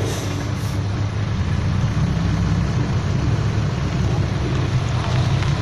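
Dump truck's diesel engine running steadily as the truck reverses slowly, growing a little louder as it nears.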